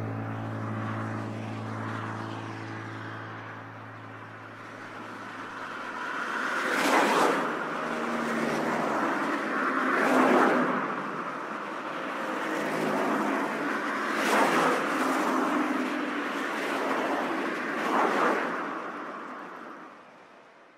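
Cars passing by on a highway, four whooshing passes a few seconds apart over a steady road hiss. A held piano chord fades out in the first few seconds.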